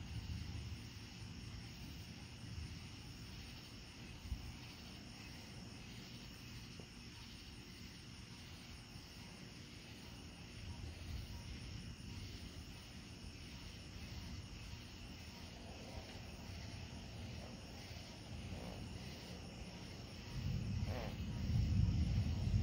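Crickets and other insects chirping steadily in a high, pulsing chorus over a low rumble; the rumble swells much louder near the end.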